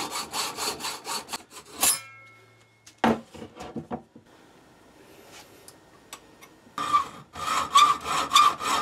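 Hand hacksaw cutting through an aluminium bar in quick, even strokes. The sawing stops about two seconds in with a sharp clank and brief ringing, then starts again, louder, near the end after a quiet pause with a few light knocks.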